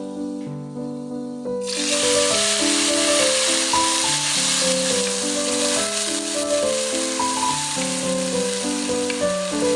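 Instrumental background music with a melody; about a second and a half in, food starts sizzling loudly in hot oil and keeps frying under the music.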